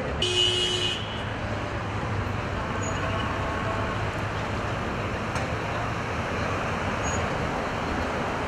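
Steady street traffic noise of car engines running in a slow-moving queue. A brief high-pitched tone sounds near the start.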